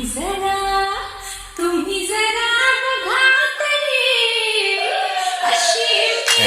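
Female voice singing a sliding, ornamented melodic line in a DJ remix of a Marathi song, over sparse backing music. The low bass drops out about halfway through, leaving the voice nearly alone.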